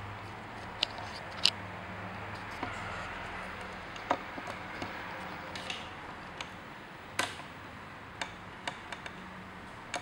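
Irregular sharp clicks and taps, about a dozen spread unevenly, from a male eclectus parrot's claws and beak knocking on a wooden floor and a hard plastic object close to the microphone.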